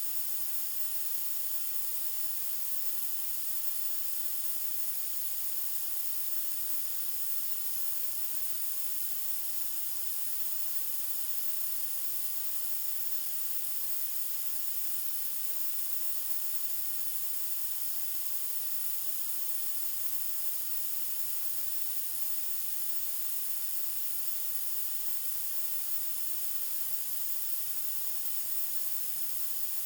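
Steady, unchanging white noise: a dense, even hiss like untuned TV static, strongest in the high treble and thin in the bass.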